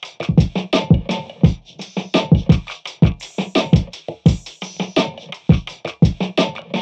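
Background music with a steady beat of drum-machine hits.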